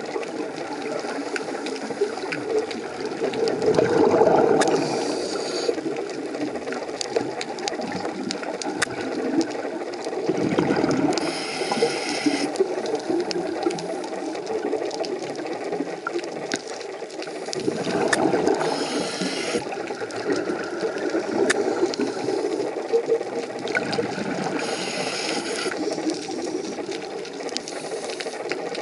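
Scuba diver's breathing heard underwater through the regulator: a short hissing inhale and a louder rush of exhaled bubbles, repeating about every seven seconds, with a steady scatter of small clicks and crackles throughout.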